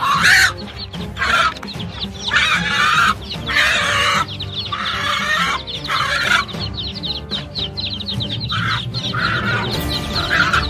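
A hen giving loud, harsh distress squawks in repeated bursts while an eagle attacks it, with a short lull a little past the middle.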